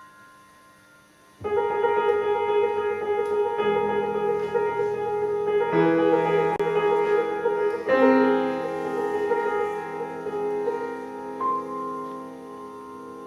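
Piano playing: after a short pause of about a second and a half, loud sustained chords ring out. New chords are struck about six and eight seconds in, and the sound fades near the end.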